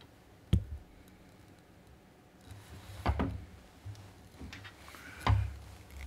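Handling knocks and clicks as a copper ring terminal and 1/0 welding cable are fitted into the steel jaw of a Temco dieless lug crimper: one sharp click about half a second in, then some rustling and two duller knocks.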